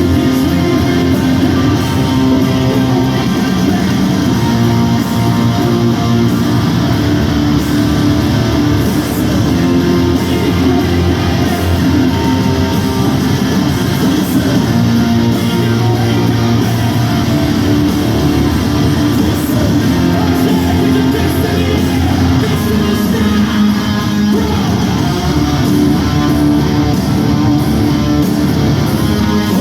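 Hard rock band playing live in an arena: distorted electric guitars, drums and singing, recorded from the crowd. Loud and dense throughout, with no pauses.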